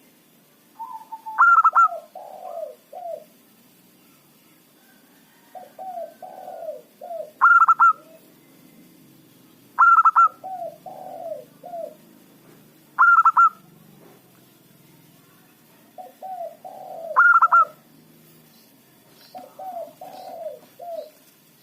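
Zebra dove (perkutut) cooing its song over and over, a phrase about every two to three seconds, each opening with a loud, higher note and running into a string of lower coos.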